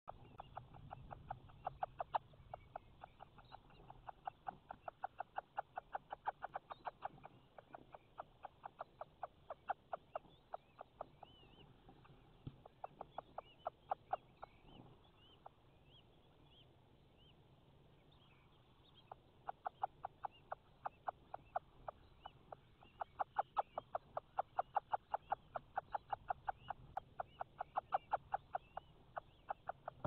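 Long, fast series of short clicking calls from an owl in a nest box, about six a second. The calls run in two bouts that break off for a few seconds in the middle. Faint higher chirping lies behind them.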